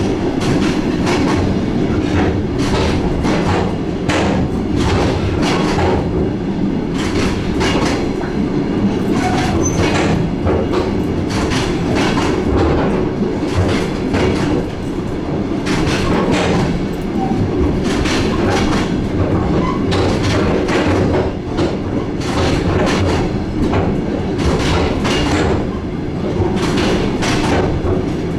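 DR1A diesel multiple unit running along the line, heard from on board: a steady low rumble with the wheels clicking and clattering over the rail joints.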